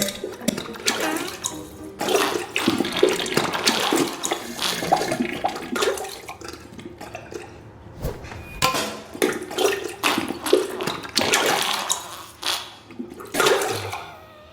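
Diarrhea sound effect: wet, sputtering farts and splattering in irregular bursts, with a short break about eight seconds in.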